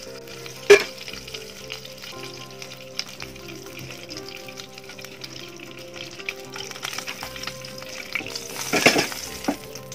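Ghee sizzling softly as it melts in a hot nonstick pan, a steady light hiss. There is a sharp click about a second in and a louder burst of noise near the end.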